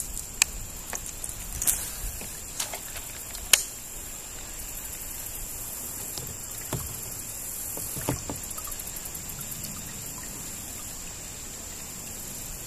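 Sharp, scattered knocks and clicks of a fishing kayak and its gear, about half a dozen over the stretch, the loudest about half a second and three and a half seconds in, over a steady soft hiss.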